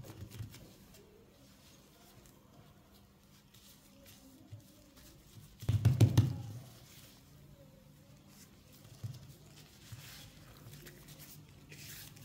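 Gloved hands pressing and patting a folded slab of buttery dough on a silicone baking mat: soft handling and rustling sounds, with one louder, dull thud of about a second near the middle.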